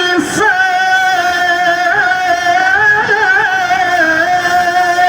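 A man's voice in melodic Quran recitation (tilawah), drawing out one long held note whose pitch wavers in ornaments, with a brief catch near the start. The voice is melodious but somewhat hoarse from a cough and cold.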